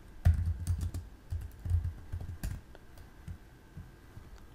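Typing on a computer keyboard: a quick run of keystrokes for the first two and a half seconds, then a few scattered taps.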